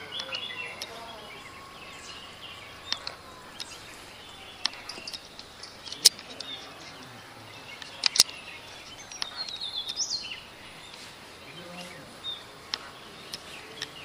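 Wild birds chirping and calling in morning forest air, with a few sharp clicks, the loudest about six and eight seconds in.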